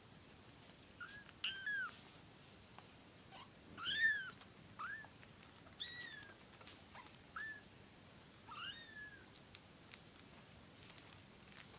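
Young kittens mewing: about eight short, high-pitched mews spread through the stretch, the loudest about four seconds in.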